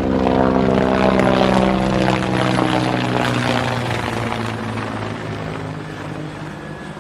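Aircraft engine droning with a steady pitched hum, fading away over the last few seconds.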